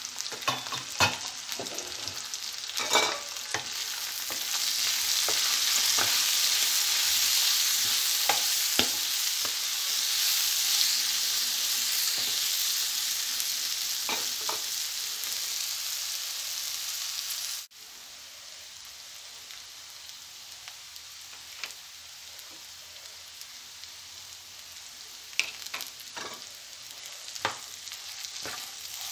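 Carrots, green peas and onions frying in a nonstick pan: a steady sizzle, with a spatula stirring and scraping the pan now and then. The sizzle drops sharply to a quieter level about two-thirds of the way through.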